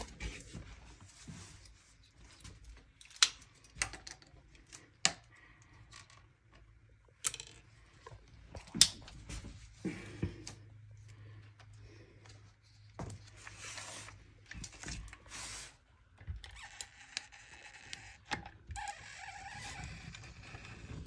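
Scattered sharp clicks and knocks, a second or more apart, as a cartridge caulk gun and tools are handled. A soft steady hiss runs through the last few seconds.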